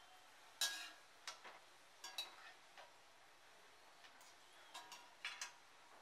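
Perforated metal slotted spoon clinking and scraping against a metal kadai while golden-brown fried onions are lifted out of the oil: several separate clinks, the loudest about half a second in, over a faint steady hiss.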